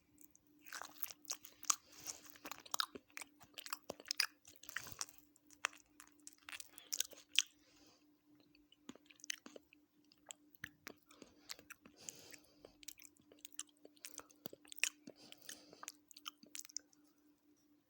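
A person chewing food close to the microphone, with wet smacking and clicking mouth sounds and some crunchy bites in irregular clusters. A steady low hum runs underneath.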